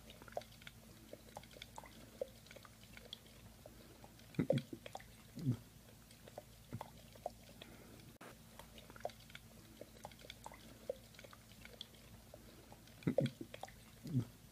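A husky-type dog mouthing a drinking glass: faint scattered clicks of teeth and tongue on the glass. Twice, a pair of louder wet chewing smacks comes about a second apart, once near the middle and once near the end.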